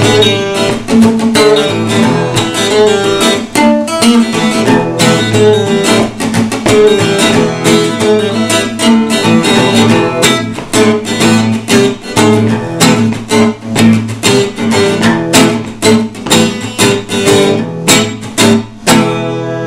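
Chernihiv-made six-string nylon-string classical guitar played with rapid rhythmic strummed chords. It ends on a final chord left ringing.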